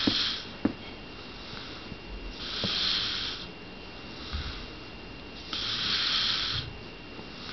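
Slow snoring by someone asleep: hissy breaths of about a second each, roughly every three seconds, with a fainter one in between.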